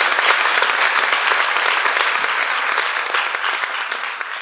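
Audience applauding, a dense continuous patter of many hands clapping that begins to thin and fade near the end.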